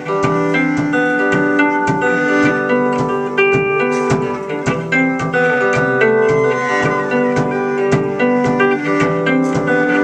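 Live band playing an instrumental passage: hollow-body electric guitar and keyboard over a cello, with a steady beat.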